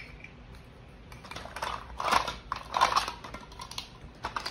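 Small plastic toy kitchen pieces clattering and knocking together as they are handled, in quick irregular clicks and taps starting about a second in.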